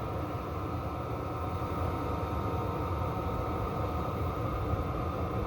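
Chinese 12 V 5 kW diesel parking heater running steadily at a turned-down setting: an even rushing of burner and blower fan with a thin steady whine, sounding a bit like a plane.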